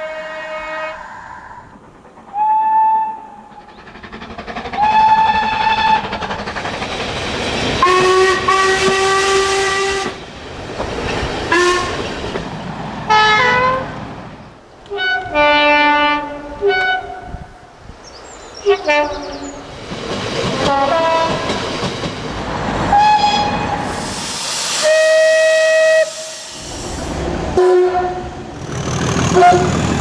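A run of British diesel train horns: about a dozen separate blasts, some short and some held for a second or two, several of them two-tone. The running noise of passing trains fills the gaps between blasts.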